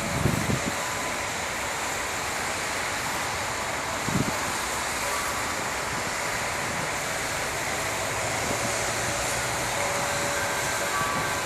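Steady outdoor city noise, a wash of distant traffic, with a couple of low thumps of wind or handling on the microphone: one near the start and one about four seconds in.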